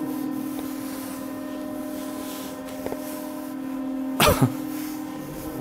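Steady machine hum in a workshop, one unchanging pitch with fainter higher tones. About four seconds in, a short loud sound falls in pitch.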